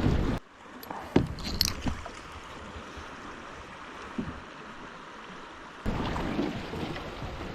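Wind buffeting the microphone on a kayak, cutting out suddenly just after the start and returning near the end. In the quieter stretch between, there are a few brief water splashes and knocks against the kayak.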